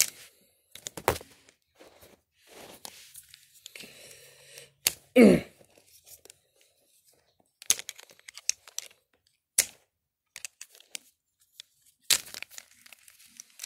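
Plastic wrestling action figures being moved and knocked together by hand, with rustling of clothing: scattered clicks, taps and rustles. About five seconds in, a short vocal sound falling in pitch.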